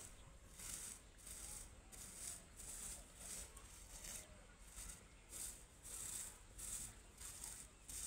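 Fingers rustling through dry, crisp grass clippings, a faint crackly rustle repeating about twice a second.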